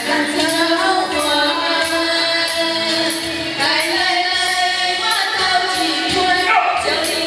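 Background music: a song with a woman singing over a steady beat.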